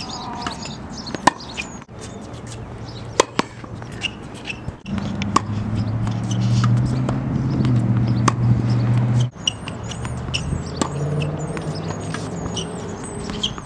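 Tennis ball struck by a racket in rally practice: single sharp pops every two to three seconds. Small birds chirp throughout, and a low steady hum is loudest in the middle.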